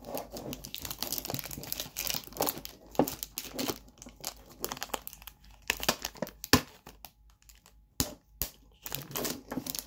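Tough plastic shrink wrap being torn and peeled off a metal tin: dense, irregular crinkling and crackling, with a few sharp snaps between about five and a half and eight and a half seconds in.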